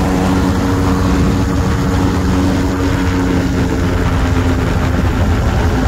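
Ultralight aircraft's engine and propeller running with a steady, even drone over a heavy low rumble.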